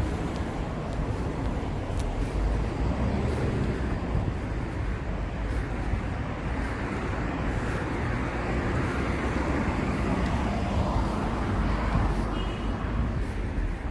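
Evening street ambience dominated by a steady wash of road traffic, cars passing continuously, with a few faint clicks and a brief faint tone near the end.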